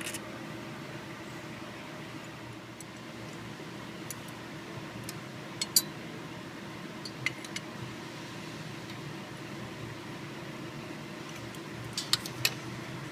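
Hand tools making a few short metallic clicks and taps over a steady background hum: a pair about halfway through and a quick cluster near the end.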